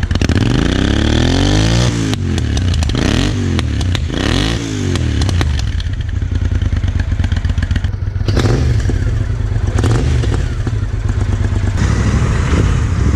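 Royal Enfield Interceptor 650's 648 cc parallel-twin engine running through its stock exhaust with the dB killer removed. It revs up and down several times in the first five seconds, then runs at a steadier pitch.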